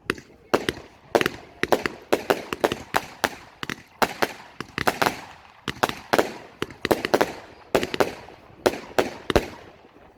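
A 96-shot, 20 mm fireworks battery cake firing: a rapid, uneven string of sharp shots and bursts, about three a second, each with a short fading tail.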